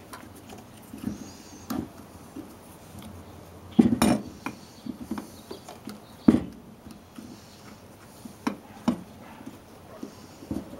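Hands working a cast brake caliper on a workbench, pressing a new rubber dust boot onto its piston: scattered clicks and knocks of handling, the two loudest knocks about four and six seconds in.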